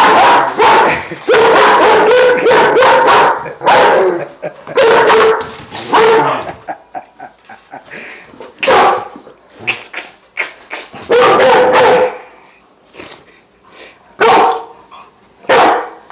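Dog barking over and over in short bursts at a small toy police car that scares it, with a pause of about two seconds past the middle.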